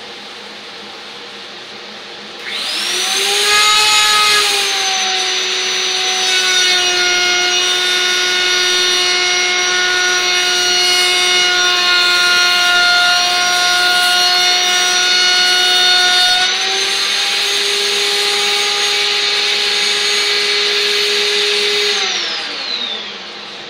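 Router spinning a Roman ogee bit starts up with a high whine about two and a half seconds in, sags slightly in pitch while the bit cuts a piece of pine, rises again as the cut ends, and is switched off near the end, winding down. A dust collector runs steadily underneath.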